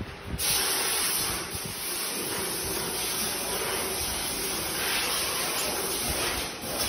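Paper baking cup forming machine running, a loud steady hiss that starts abruptly about half a second in.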